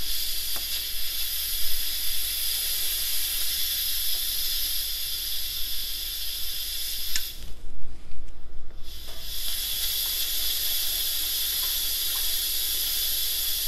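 Instant Pot electric pressure cooker venting steam through its turned steam release valve in a steady hiss: a manual (quick) pressure release. The hiss drops away for a second or so about halfway, then resumes.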